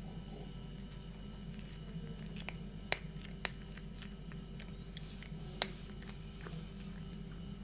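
A cat crunching dry kibble, with a few sharp crunches, the loudest about three seconds in, half a second later, and between five and six seconds, over a steady low hum.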